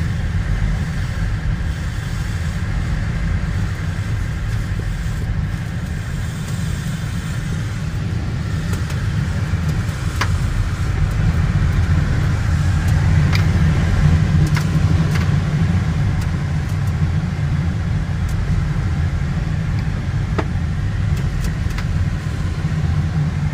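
Steady rush and rumble of airflow around a glider's canopy and fuselage in flight, heard from inside the cockpit, a little louder around the middle, with a few faint clicks.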